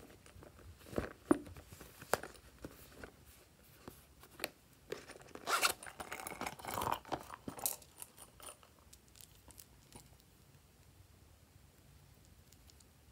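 A pink plastic unicorn-shaped toy case being handled and opened: a few sharp clicks and taps, then a dense scraping, rustling stretch about halfway through, trailing off into a few faint ticks.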